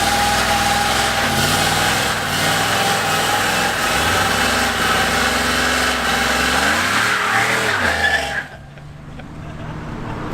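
A car driving, with engine and road noise. The engine revs rise and fall about seven seconds in, then the sound drops off sharply to a quieter level a second later.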